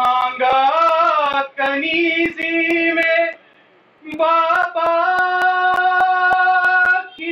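A single high voice singing a noha, a Shia mourning lament, in long drawn-out phrases with a short pause about halfway. Under it runs a steady beat of sharp strikes, about four a second: matam, the rhythmic beating of the chest in mourning.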